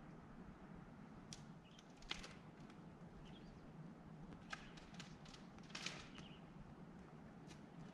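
Quiet forest ambience with a few faint short bird chirps and scattered faint clicks.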